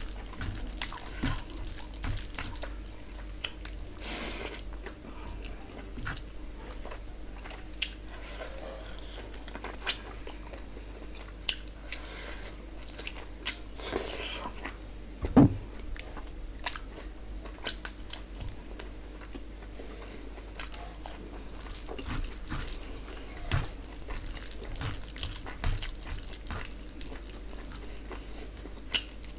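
A person eating rice and curry by hand: close-up chewing and lip smacks in an irregular run of short clicks, with one louder thump about halfway through.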